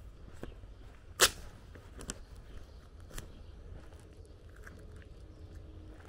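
Footsteps of someone walking along an asphalt lane, about one step a second, with one sharp click about a second in that is much louder than the rest, over a low steady rumble.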